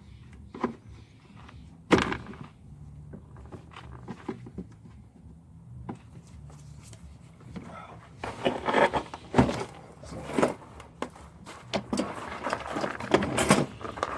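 Scattered knocks and clicks of hand work on the underside of a car. There is one sharp knock about two seconds in and a busier run of knocks and rattles in the last six seconds.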